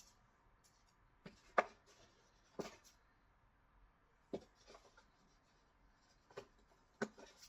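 Vacuum accessories and their packaging being handled: a handful of short, separate rustles and clicks, the loudest about one and a half seconds in.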